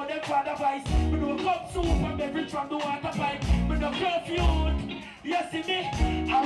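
A live reggae band playing, with heavy repeated bass notes and drums, and a male singer's voice over the music.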